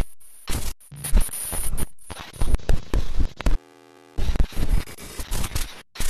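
Glitchy digital static sound effects: bursts of crackling noise that cut in and out abruptly, with a short, quieter buzzing tone about two-thirds of the way in.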